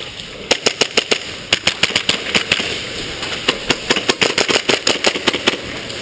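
Airsoft guns firing in rapid, irregular bursts of sharp snapping shots, starting about half a second in, easing briefly around the middle and stopping shortly before the end.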